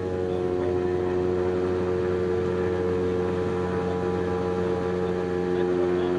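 Lake Amphibian's pylon-mounted piston engine and pusher propeller running with a steady drone, heard inside the cabin.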